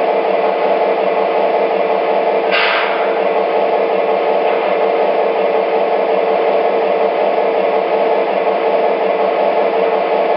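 Proto-Sound 2.0 diesel sound from MTH GP-35 model locomotives: a steady idling prime-mover rumble played through the models' small speakers, thin in the bass. A short, sharper noise cuts in about two and a half seconds in.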